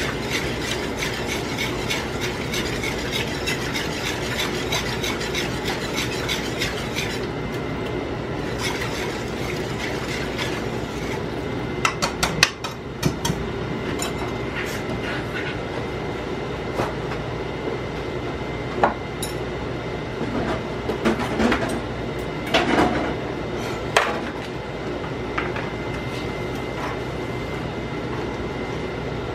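A utensil stirring sauce in a pan: quick regular strokes for the first several seconds, then scattered clinks and knocks against the pan and its rim. A steady hum runs underneath.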